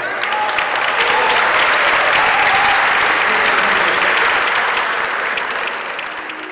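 An audience of diners applauding a live opera performance that has just ended, many hands clapping densely; the clapping dies away near the end.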